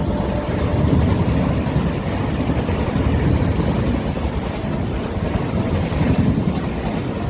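Steady, loud low rumble of a passing train.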